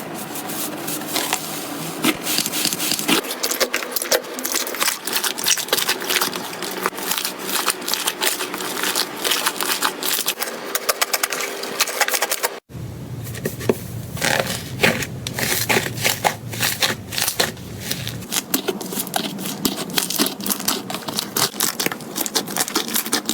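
Crunchy slime being squeezed and pressed by hand, with dense rapid crackling and clicking. The sound breaks off for an instant about halfway through, then carries on.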